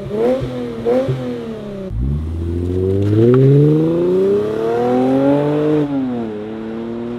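2022 Lexus IS 350's 3.5-litre V6 through a muffler-delete exhaust with the stock resonators kept. Two quick revs while parked. After a cut, a long full-throttle pull with the pitch rising for about four seconds as the car accelerates away, then the pitch drops and settles to a steady lower note near the end.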